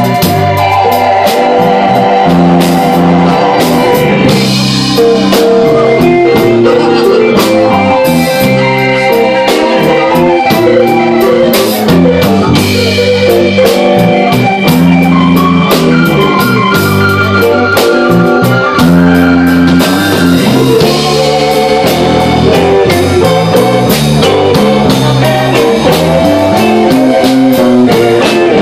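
Live blues band playing loudly: electric guitar and drum kit over bass, keyboard and saxophone.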